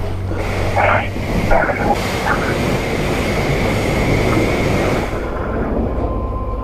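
Self-serve car wash pressure wand spraying water: a steady hiss over a low pump hum, which drops away about five seconds in.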